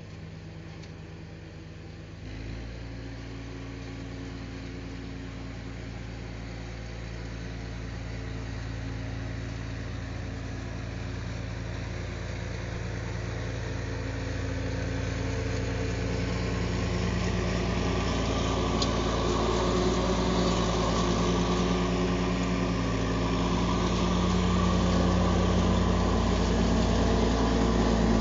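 Engine of a Steiner front-deck riding mower tractor running steadily. It steps up about two seconds in and then grows steadily louder as the machine drives closer across the lawn.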